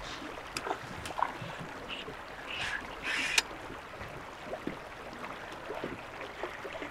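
Faint water splashing and small scattered knocks around a drift boat on the river, with a brief louder splash about three seconds in.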